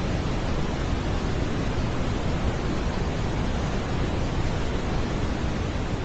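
Brown noise: a steady, even rushing hiss weighted toward the low end, deep and rumbling, with no changes or events.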